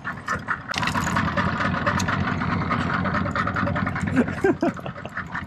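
Boat engine running steadily under way at trolling speed.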